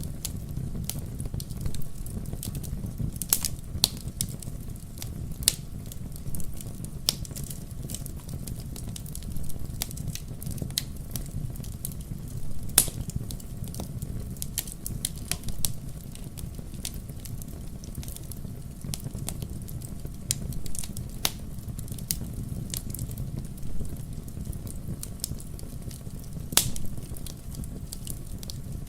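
Wood logs burning in a fireplace: irregular sharp crackles and pops over a steady low rumble of the fire.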